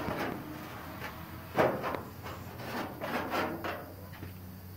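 A few scattered knocks and rubbing sounds, the loudest about one and a half seconds in and a small cluster near the end, over a faint steady low hum.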